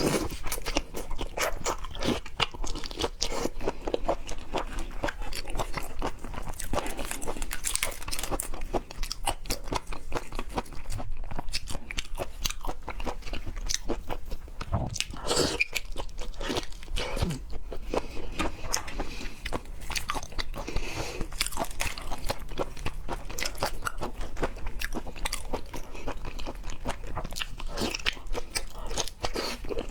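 Close-miked eating of raw seafood: continual biting and chewing, a dense run of short wet clicks and smacks.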